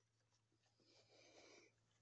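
Near silence: room tone, with one faint, soft rustle about a second in.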